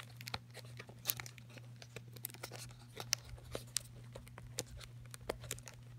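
Tape being picked and peeled off a cardboard product box: faint, irregular small crackles and clicks throughout, over a steady low hum.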